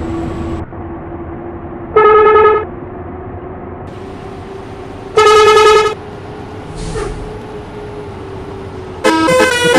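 A bus's basuri telolet horn sounds two short, loud, wavering blasts about three seconds apart over the bus's running noise. Near the end it starts playing a quick melody of changing notes.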